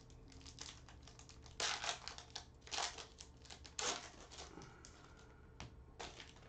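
A stack of glossy trading cards being thumbed through by hand, cards sliding and clicking against each other in quick, uneven taps, with three louder swishes about one and a half, three and four seconds in.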